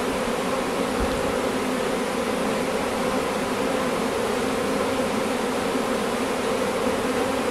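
Honeybee swarm humming steadily in a dense, continuous drone as it moves into a new hive, with bees at the entrance fanning their wings to spread the queen's scent so the swarm knows this is home.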